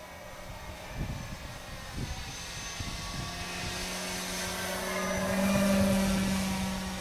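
Electric brushless motor and propeller of a 65-inch U Can Do 3D RC plane running on a 6S battery, whining at a steady pitch in flight. It grows louder as the plane passes close overhead, peaking about six seconds in, then eases off slightly.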